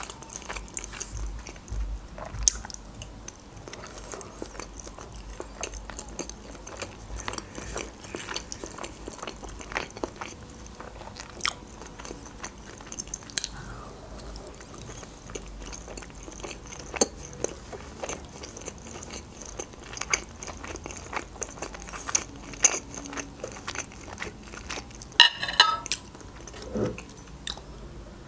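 Close-miked chewing and soft wet mouth sounds of someone eating boiled pelmeni dumplings off a fork, with many small clicks. A brief clatter comes about 25 seconds in.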